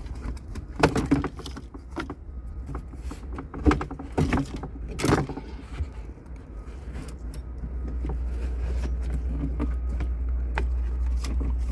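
Plastic clicks and knocks of a car's center console being worked loose and lifted out, with several sharp knocks in the first few seconds, over a steady low rumble that grows louder near the end.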